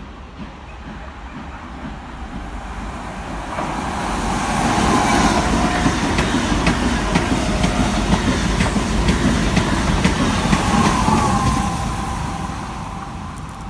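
Renfe Class 130 (Talgo 250) trainset running through the station at speed. The rumble builds over the first few seconds, then the train goes by loudly with wheels clicking over rail joints, and it fades as the train draws away near the end.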